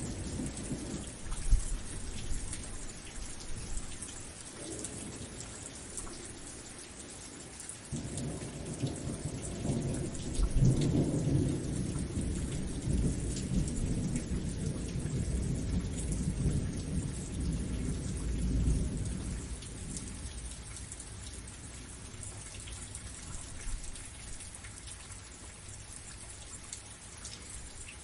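Steady rain falling, with a long low rumble of thunder that builds up about a third of the way in and dies away before the end. There is a shorter, fainter rumble near the start.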